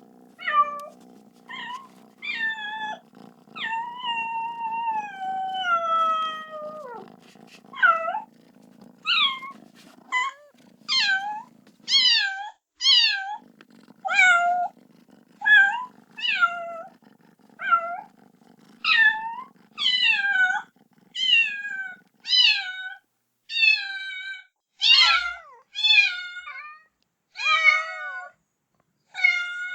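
Kitten meowing over and over, high-pitched and falling in pitch, about once a second, as a kitten calling for its mother. About four seconds in comes one long drawn-out meow. A faint low hum runs under the meows until about two-thirds of the way through.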